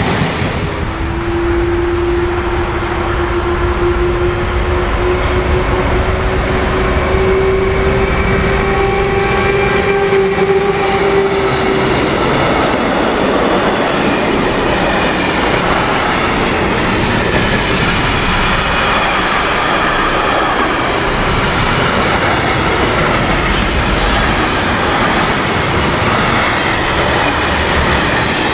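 A long container freight train passing close by, its wagons' wheels rumbling and clattering over the rails. For about the first twelve seconds a steady whine, rising slightly in pitch, sits over the rumble and then stops.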